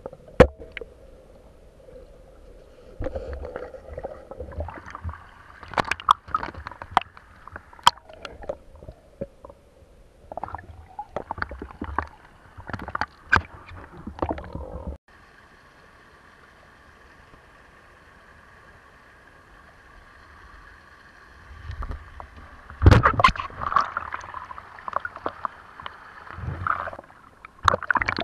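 Muffled underwater sound picked up by a camera submerged in a river: irregular sharp clicks and knocks with gurgling water. About halfway through it drops abruptly to a faint steady hum, and the knocks and rumbling return near the end.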